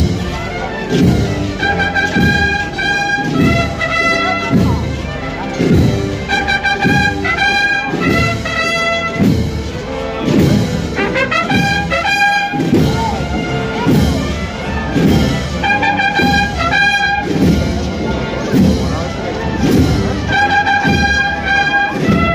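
Brass band playing a slow processional march: a sustained brass melody over a steady low beat, a little more than one stroke a second.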